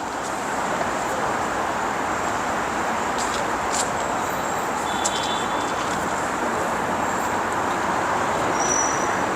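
Steady, continuous noise of road traffic, with a few faint brief high-pitched squeaks around the middle.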